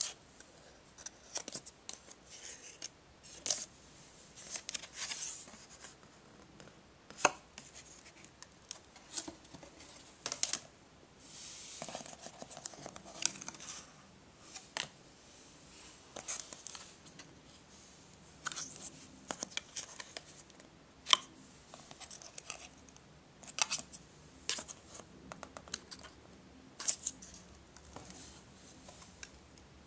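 Thick cardboard pages and flaps of a lift-the-flap board book being handled: irregular sharp clicks and taps as the stiff pages and flaps are flipped, between short rustles and scratches of fingers brushing across the pages.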